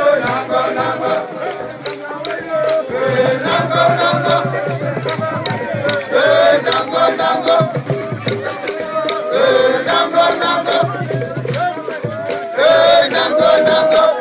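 A group of voices singing a traditional Ekpe chant in repeated phrases, with hand rattles shaken in a steady beat throughout.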